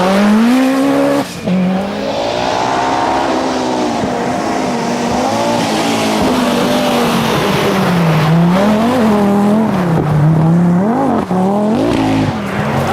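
A Group B rally car's engine driven hard, its pitch climbing and dropping again and again with gear changes and throttle lifts, with a sharp break about a second in.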